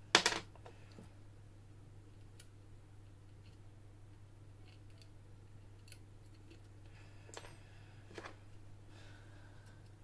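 A sharp metallic clack right at the start, then a few faint scattered clicks of hand tools and a hook pick working the wafers of a Kromer Protector wafer lock, over a steady low hum.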